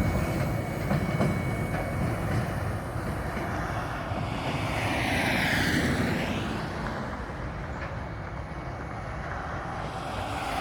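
Belgrano Cargas freight train rolling past: a steady low rumble of wagons on the rails that slowly fades, with a rushing sweep about five seconds in.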